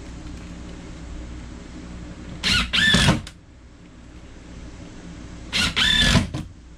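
Cordless drill driving wood screws down into a wooden frame: two runs with a high motor whine, about three seconds apart, each a short blip followed by a run of about half a second.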